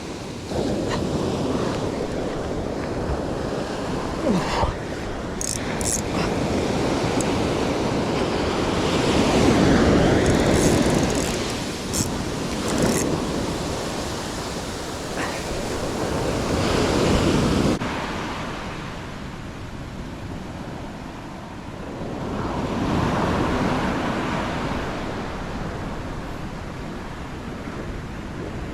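Ocean surf washing against the shore, swelling and fading every several seconds, with wind buffeting the microphone. A few short sharp clicks come early on the surf.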